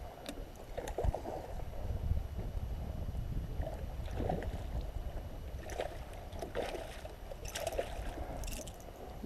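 A small boat on the water: water lapping and splashing against the hull over a continuous low rumble, with irregular small knocks and splashes throughout.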